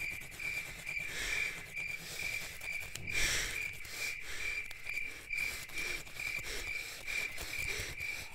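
Crickets chirping steadily, about three high chirps a second, with faint rustling and clicks and one brief louder rustle about three seconds in.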